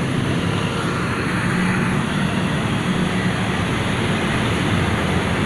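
Steady low rumble of a bus's diesel engine idling, with road traffic noise around it.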